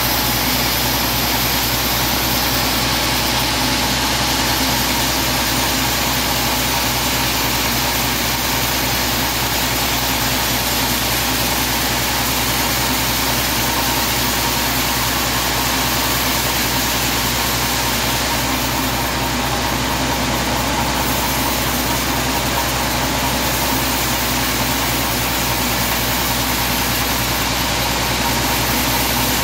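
Sawmill band saw ripping a teak log lengthwise as the log carriage feeds it through, a loud, steady, even noise.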